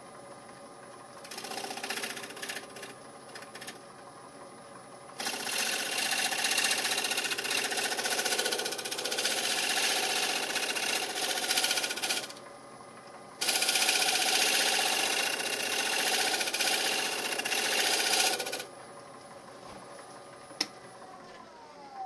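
Wood lathe running with a steady hum while a bowl gouge cuts the outside of a spinning fruitwood bowl: a few short cuts, then two long passes of about seven and five seconds. Near the end the lathe's hum falls in pitch as it spins down.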